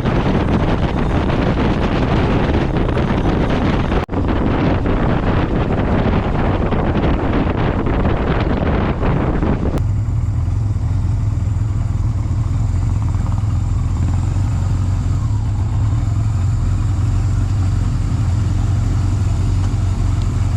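Motorcycle on the move: loud wind rush over the microphone with the bike's running underneath. About ten seconds in it changes abruptly to a steady low engine and road drone with much less wind.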